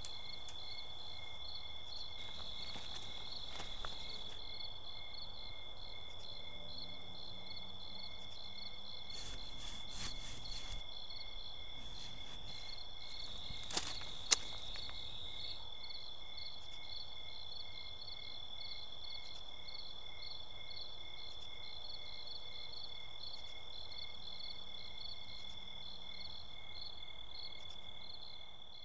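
Crickets chirping in a steady, high, pulsing night-time chorus, with a single sharp click about halfway through.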